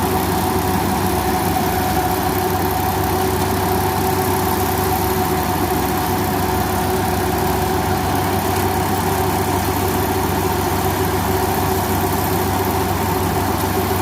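Rice combine harvester's engine and machinery running at a constant speed, a steady drone with a continuous whine and no change in pitch.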